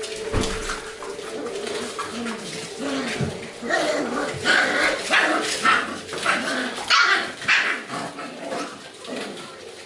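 A litter of young golden retriever puppies yapping and barking as they play, with a quick run of short, high barks in the middle.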